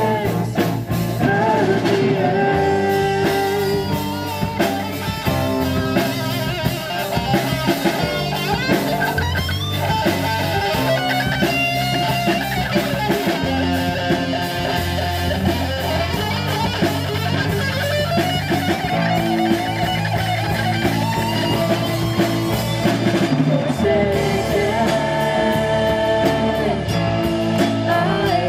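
A live rock band playing a song: electric guitars and bass guitar over a drum kit, with a female and a male singer.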